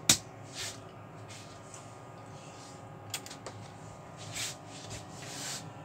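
A sharp click right at the start, the loudest sound, as the Goldstar OS-7020A oscilloscope is switched on, followed by a few softer clicks and brushing handling noises.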